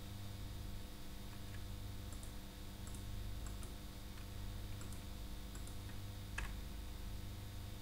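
Faint, scattered computer mouse clicks, one louder than the rest about six and a half seconds in, over a steady low electrical hum and hiss.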